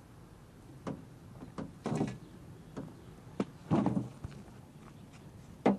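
A series of short knocks and thumps, about six, spread out irregularly, the sharpest and loudest one near the end.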